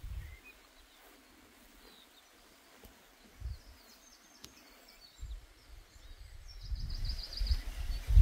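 Small birds chirping, with a quick run of about eight high chirps near the end. Wind buffets the microphone with low rumbling gusts, which fade out early on and build up again over the last couple of seconds.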